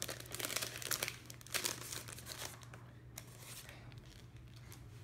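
Clear plastic packaging bag crinkling as a stack of sticker sheets and patterned paper is pulled out of it. The crinkling is dense for the first two seconds or so, then thins to faint handling.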